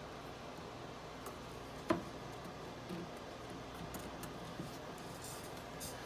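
Light clicks and one sharper knock about two seconds in from boards and tools being handled during woodworking, with a few brief scrapes near the end, over a low steady hum.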